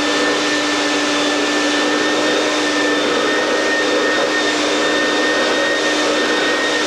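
A steady motor drone with a constant whine, unchanging throughout.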